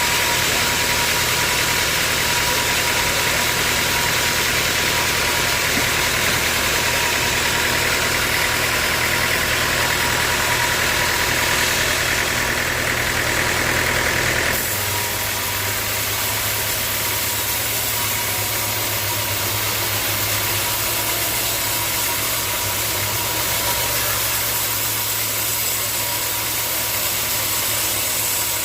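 Sawmill machinery running steadily, an engine-driven saw with a constant whine over a hiss. About halfway through the sound changes suddenly: the hiss drops away and a lower hum comes up.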